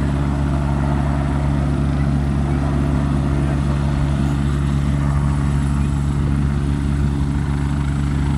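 Helicopter engine and rotor running steadily: a constant low drone that holds one pitch throughout.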